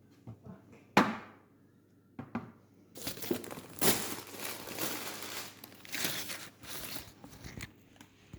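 A sharp knock about a second in, then several seconds of crinkling and rustling, like wrapping material being handled and crumpled.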